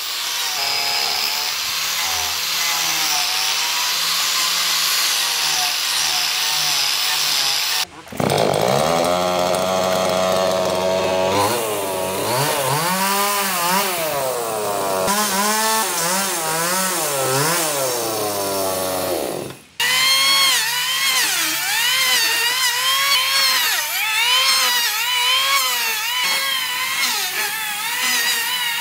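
An angle grinder sanding a wooden slab, running steadily; then, about eight seconds in, a petrol chainsaw revving up and down as it cuts into the wooden stump; and for the last nine seconds an electric hand planer shaving the wooden top, its pitch wavering with the load.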